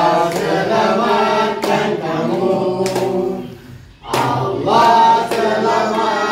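A family group singing a birthday song together and clapping along, with a short break about three and a half seconds in before the singing picks up again.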